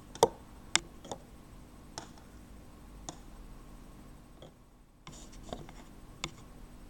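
Light clicks and taps from a wooden knitting needle and hands handling yarn at a table. There are two sharper clicks in the first second, then a few softer taps spread out after them.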